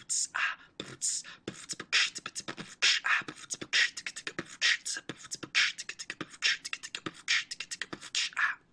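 Someone beatboxing: a steady beat of sharp mouth clicks and short hisses, about two hisses a second, stopping shortly before the end.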